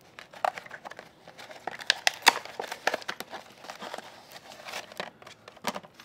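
White paper wrapping crinkling and rustling as it is handled by hand, in irregular sharp crackles, loudest about two seconds in and again near the end.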